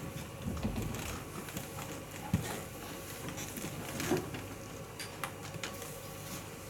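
Quiet hall room tone with a few light, scattered knocks and clicks from play at the draughts tables, about a second or two apart.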